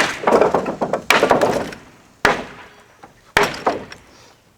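Wood of a porch being broken apart: four heavy blows about a second apart, each followed by a crackling clatter of splintering and falling boards.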